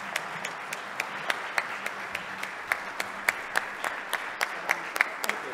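Audience applauding, with one close pair of hands clapping steadily about three to four times a second.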